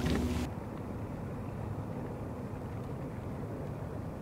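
Steady low rumble of wind and water around a kayak on open water, with no distinct events. It follows a brief hiss that cuts off sharply about half a second in.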